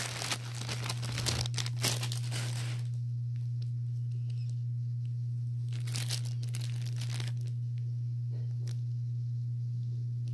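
Plastic packaging of a squishy toy crinkling and tearing as it is handled and opened, in scattered bursts with quiet gaps, over a steady low hum.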